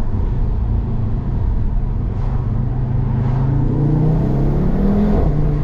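Audi RS3 8P's turbocharged 2.5-litre five-cylinder, breathing through an 034 Motorsport carbon intake, accelerating hard: the engine note rises steadily in pitch for several seconds, then steps down near the end at a gear change.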